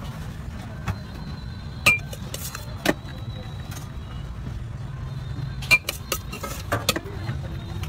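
A metal spoon clinking against steel utensils while filling a bun: about seven sharp clinks, spaced irregularly and several close together near the end, over a steady low rumble of traffic.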